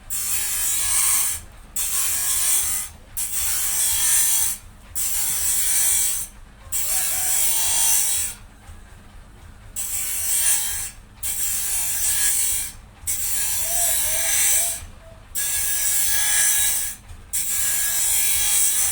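Wood being cut or shaved by a power tool in repeated passes: about eleven bursts of rasping noise, each a second or so long with short pauses between, over a steady low hum.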